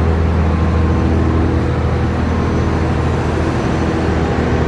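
Tour boat's engine running steadily: a low, even hum with a constant hiss over it.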